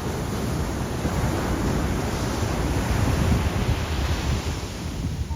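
Ocean surf washing up the beach as a steady rushing hiss, with wind buffeting the microphone underneath.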